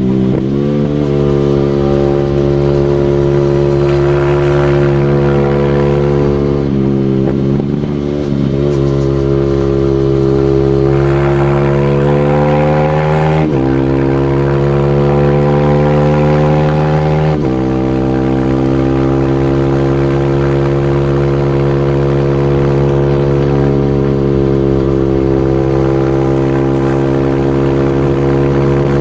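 Supermoto motorcycle engine running under way, its pitch climbing as it accelerates and dropping sharply at gear changes several times.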